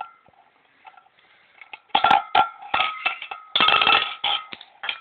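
Ribbed steel tin can handled roughly while a blowgun dart is worked out of its pierced side. A few faint clicks, then from about two seconds in a dense run of metallic clanks and rattles, with a ringing tone from the can's thin wall.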